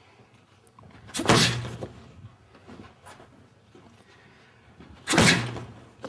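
Two side kicks landing on a handheld kicking shield, about four seconds apart. Each is a sharp smack that dies away within about half a second.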